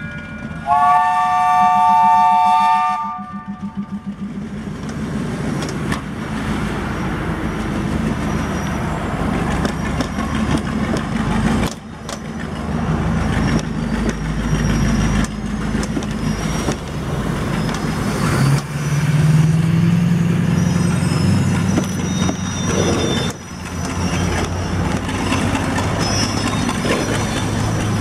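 The 1943 Plymouth switcher locomotive's horn sounds one steady chord for about two and a half seconds near the start. Then its engine runs with a low pulsing rumble as it pulls the train, with occasional clicks from the wheels on the rails. The engine note rises about two-thirds of the way in.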